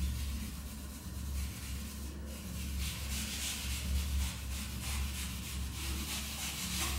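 Whiteboard eraser rubbing across a marker-written whiteboard in repeated wiping strokes, over a steady low hum.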